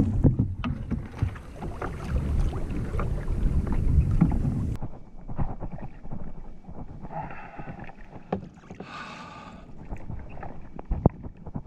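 Water splashing and sloshing beside a kayak, with wind buffeting the microphone loudly for the first few seconds and scattered knocks of gear being handled. Two brief pitched sounds come a little past the middle.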